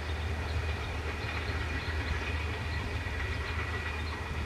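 Bangladesh Railway broad-gauge intercity passenger train running away down the track: a steady low rumble of the coaches' wheels on the rails, with a faint steady high tone above it.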